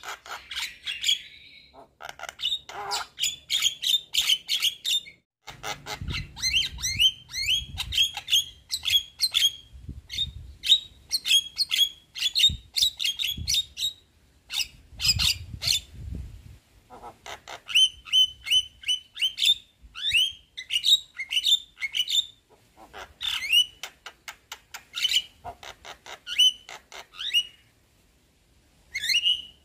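Javan myna (jalak kebo) singing: a fast chattering run of short, upward-sweeping notes, several a second, in bursts of a few seconds broken by brief pauses.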